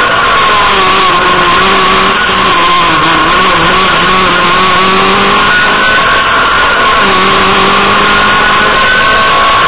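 Renault Clio Williams rally car's 2.0-litre four-cylinder engine at high revs, heard loud from inside the cabin. Its pitch dips and climbs again a few times as the car shifts and lifts through the bends.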